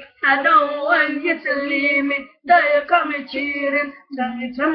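A young boy singing unaccompanied, in short phrases with brief pauses about two and a half and four seconds in.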